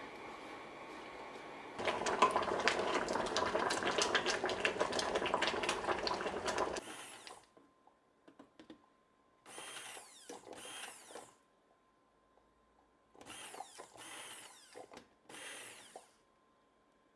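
Hand-held immersion blender puréeing cooked figs into jam in a steel pot, run in three short bursts in the second half. Before that comes a loud, dense crackling stretch of about five seconds.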